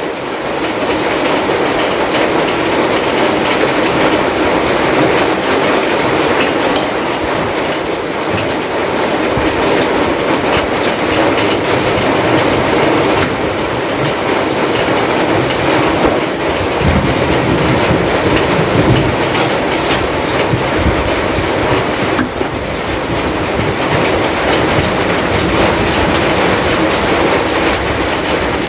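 Steady rain falling on the hut's roof and splashing into puddles and a rain-filled wheelbarrow: a loud, even hiss that doesn't let up.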